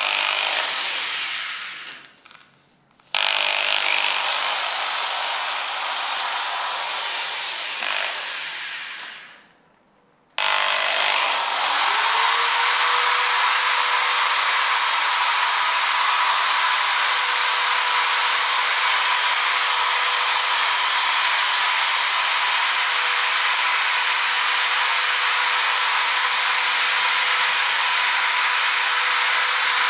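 Electric drill boring a hole in metal with a worn drill bit, to get grip for turning a stripped bicycle bottom bracket. A short burst is followed by a run of about six seconds that winds up and down, then after a pause a long steady run from about ten seconds in.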